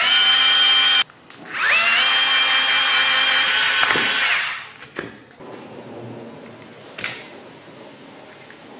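Cordless drill motor whining: a one-second run that stops abruptly, then after a short pause it spins up again, runs steadily for about three seconds and winds down. A few faint clicks follow.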